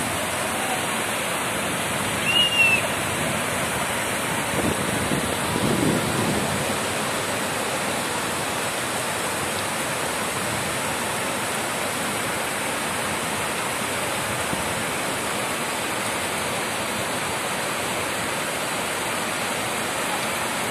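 Heavy rain and muddy floodwater rushing down a street: a steady, dense wash of water noise, with a short high chirp about two and a half seconds in.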